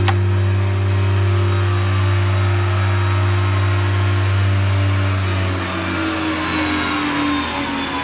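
SCM P 64 moulder (four-sided planer) running with a steady deep hum, then its motors spinning down, the pitch falling and the hum dropping away over the last few seconds.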